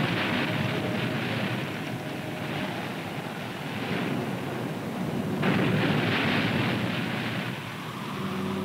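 Rushing sea and spray as a surfaced submarine drives through heavy swell, surging loudly again about five and a half seconds in as a wave breaks over the bow.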